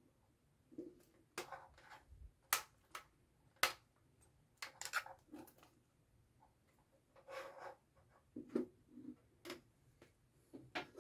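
Scattered small clicks, taps and short scrapes from a screwdriver working the screw terminals of a plastic ABB timer relay while the relay is handled and set down on a desk; the sharpest clicks come about two and a half and three and a half seconds in.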